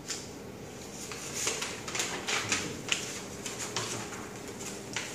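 Paper rustling and crackling as the pages of a thin paper booklet are turned and unfolded: a quick, irregular run of crinkles that starts about a second in and goes on until near the end.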